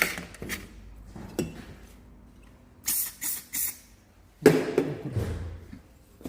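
Caterpillar HEUI diesel injector on a test bench spraying in three short hissing bursts, between a few light clicks, followed by a louder metallic clatter about four and a half seconds in.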